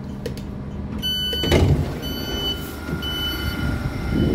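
Passenger train's doors at a station stop: a high beep, then the doors sliding open with a loud rush of noise, followed by a high warning beep repeating about once a second, over the low hum of the standing train.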